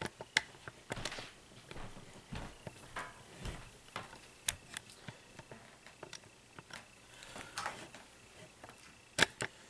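Quiet, scattered small clicks and taps at uneven intervals, with a few soft rustles between them, like handling noise.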